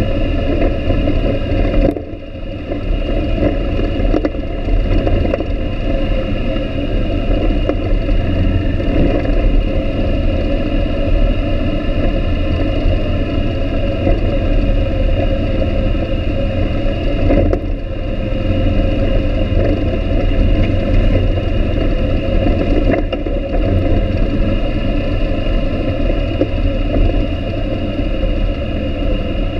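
ATV (quad) engine running steadily as it rides along a dirt trail, with brief easings of the throttle about two seconds in and twice more later on.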